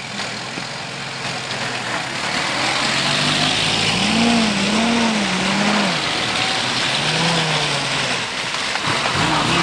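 A convoy of WWII military jeeps and trucks driving past one after another, engines revving as each goes by. The sound grows louder from about two seconds in, with the engine note rising and falling as the vehicles pass.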